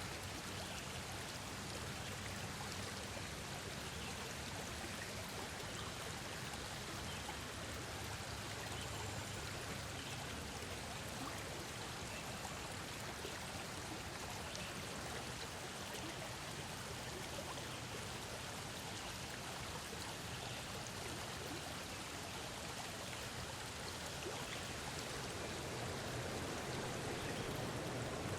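River water flowing steadily, an even rushing that grows a little louder near the end.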